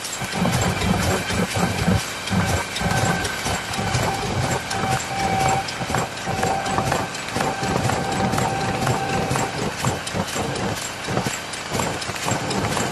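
Adhesive courier-bag making machine running: a fast, regular mechanical clatter, with a thin steady whine through the middle.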